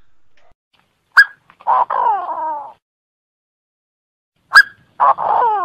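Chinese francolin calling: twice, a sharp short note followed by a run of harsh notes that slide down in pitch.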